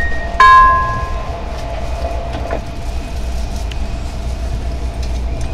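The last note of a train's onboard announcement chime rings out and fades within the first second, leaving the steady low rumble of the train running, heard inside the passenger car, with a few faint clicks from the wheels.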